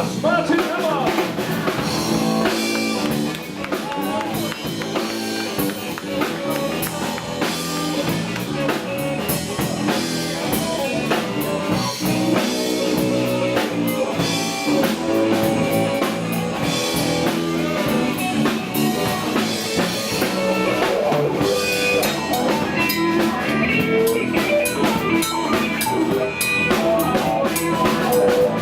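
Live blues-rock band playing, with drum kit and guitar.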